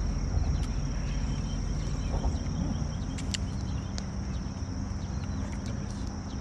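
A steady high-pitched insect drone over a low rumble, with a few light clicks of metal forks against plastic plates.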